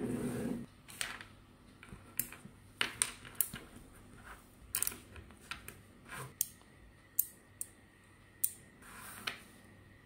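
Small neodymium magnetic balls clicking sharply as they snap onto one another, a dozen or so irregular clicks, after a brief rustling burst at the start.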